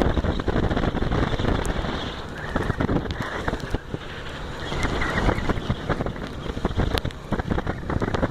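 Honda XR250 Tornado's single-cylinder four-stroke engine running under way as the motorcycle is ridden, with heavy wind buffeting on the microphone.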